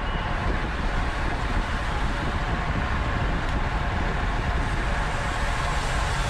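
Steady rush of wind and road noise from a racing bicycle riding at speed, the wind buffeting the onboard camera's microphone.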